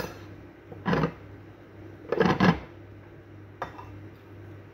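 Metal spoon scraping and clinking against a plate as food is scooped up, in a few short bursts, the loudest about two seconds in, over a steady low hum.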